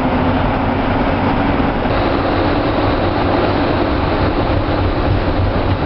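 Optare Solo bus driving, heard on board: a steady engine and road rumble with a hum that fades about two seconds in.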